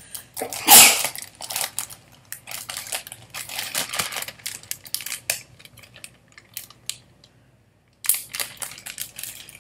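Plastic bag crinkling and rustling as it is handled, in quick irregular crackles with one loud crackle about a second in. It stops for about a second near the end, then resumes.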